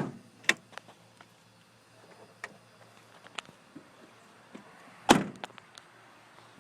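Two heavy thumps about five seconds apart, with a sharp knock half a second after the first and scattered light clicks between, as parts of the pickup's cab are handled.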